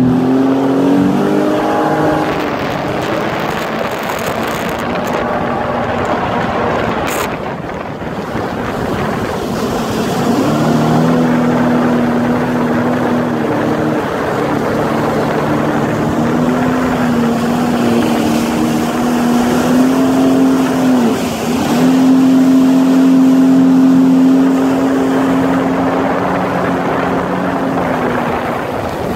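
Jet ski engine running under way over a steady rush of noise. Its pitch shifts with the throttle and dips briefly about three-quarters of the way through.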